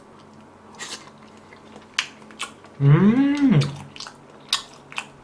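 Close-up mouth sounds of a person chewing soft sliced chicken breast in tomato sauce, with scattered wet smacks and clicks. About three seconds in comes a pleased 'mmm' hum that rises and then falls in pitch.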